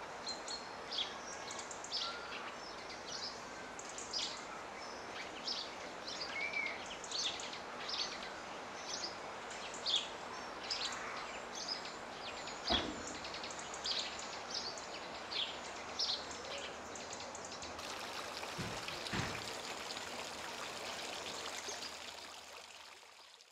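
Birds chirping and singing over a steady wash of running water, with one sharp tap about halfway through. The sound fades out near the end.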